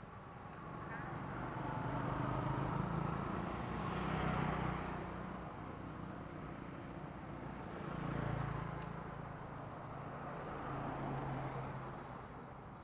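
Motor vehicles passing along the road close by, the sound swelling and fading away several times.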